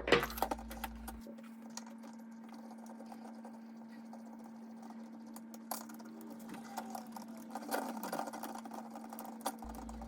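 Small plastic parts and a screw clicking and rattling as an old toggle switch is worked loose from a toy ghost trap's plastic panel. A steady low hum runs underneath.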